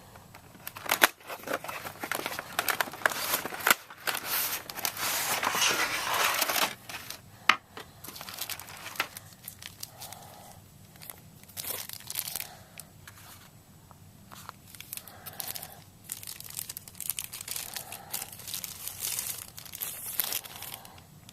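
Plastic packaging crinkling and rustling in irregular bursts as it is handled and unwrapped, busiest and loudest in the first several seconds, then in sparser, softer bursts.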